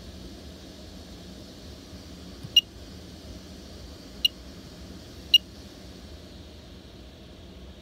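Touchscreen heating and ventilation control panel giving three short, high-pitched beeps as it is tapped, each beep confirming a touch on the screen.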